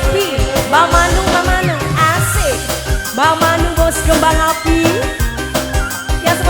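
Live tarling dangdut band music: a steady drum beat under a gliding, scooping melody line.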